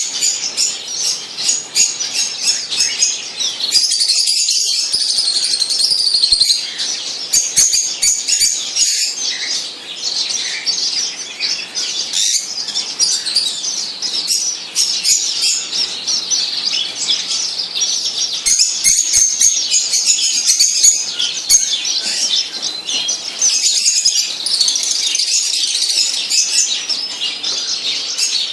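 Many small birds chirping at once: a dense, continuous chatter of quick, high-pitched, overlapping chirps and tweets.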